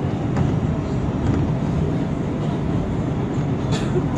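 Inside an R142 subway car running at speed on an elevated line: a steady rumble of wheels on rail, with light clicks over rail joints and one sharper click near the end.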